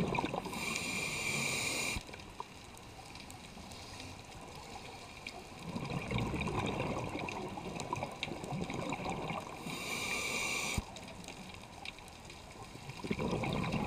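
Scuba diver breathing through a regulator underwater: two short, high hissing inhalations about nine seconds apart, each followed after a pause by a longer low burble of exhaled bubbles.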